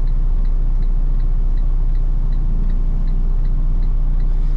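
Semi-truck diesel engine idling, a steady low rumble heard inside the cab, with a light regular tick about two or three times a second.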